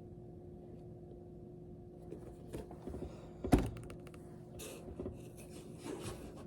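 Packaging handled while Funko Pop boxes are unpacked: a single sharp thump about halfway through, then scattered rustling and crinkling, over a steady low hum.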